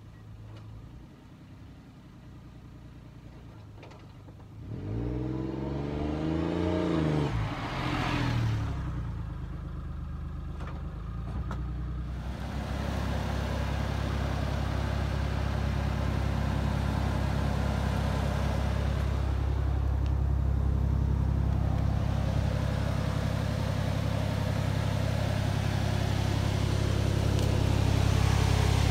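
A small engine revs up and then down as a vehicle drives past about five seconds in. From about twelve seconds the 1995 Honda Acty van's three-cylinder engine idles steadily, a little louder near the end.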